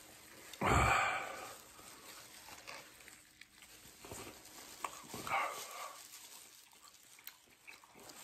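A man's pained vocal noises from the burn of a super-hot pepper-extract hot sauce: a loud groan about a second in, then quieter breathing and a shorter cry a little after five seconds.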